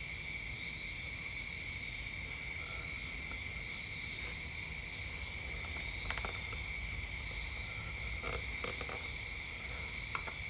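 A faint, steady high-pitched drone in several tones, with a few faint light ticks about six seconds in and again near the end, as a drill bit is handled against a wooden fretboard.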